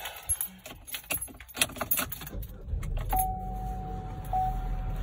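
Car keys jangling and clicking as someone settles into a car, then the car's engine starts about two seconds in and runs with a low rumble. A steady electronic warning tone comes on about a second later and breaks off briefly once.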